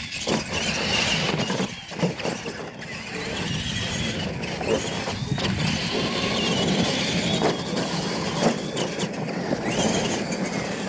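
Radio-controlled monster trucks racing on dirt: high-pitched motor whine rising and falling with the throttle over the scrabble of big tyres, with a few sharp thuds from landings and bumps.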